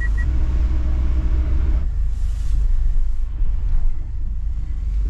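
Steady low rumble of a camper van's engine and tyres heard from inside the cab while driving. A repeating high beep stops right at the start.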